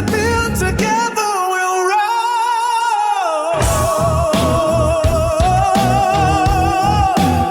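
A song with a sung vocal holding long notes with vibrato. The bass and drums drop out about a second in and come back in at around three and a half seconds.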